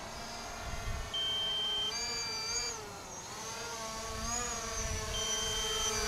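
DJI Mavic Pro quadcopter's propellers whining in flight, the pitch rising and falling as the drone manoeuvres, with a few short high steady beeps over it.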